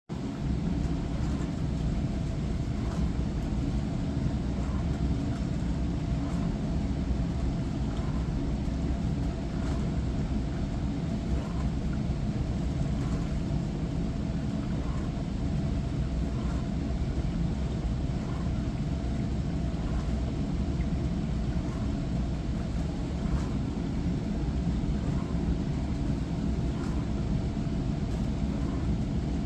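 Hava glass-front dishwasher running its wash cycle: a steady low rumble of the pump with water spraying over pots and lids, and faint light ticks recurring about once a second.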